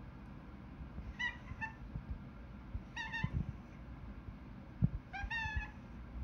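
Domestic cat meowing: a pair of short meows, then another, then a longer one near the end. A single sharp knock comes just before the last meow.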